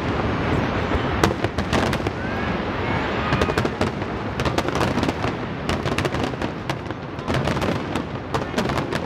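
Aerial firework shells bursting in a dense, continuous volley: many sharp bangs and crackles one after another over a steady rumble.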